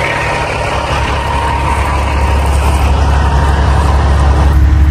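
Semi-truck diesel engine running with a steady low drone that grows louder over the few seconds.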